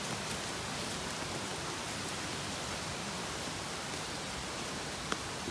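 Steady rush of flowing water, an even hiss with no rhythm. A single sharp click comes near the end.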